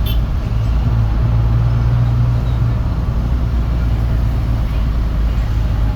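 Motor vehicle traffic: a steady, loud, low engine rumble, with a brief sharp sound right at the start.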